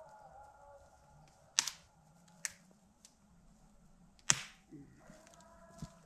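Three sharp cracks or knocks, about a second and a half in, about a second later, and the loudest a little past four seconds in.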